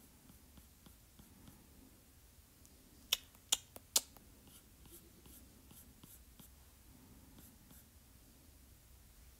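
Stylus tip on an iPad's glass screen while sketching: faint scratchy strokes with small ticks throughout, and three sharp taps close together about three to four seconds in.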